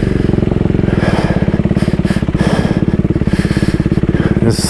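Husqvarna Svartpilen 401's single-cylinder engine running steadily as the motorcycle rides off road over soft, wet ground, with a brief hiss near the end.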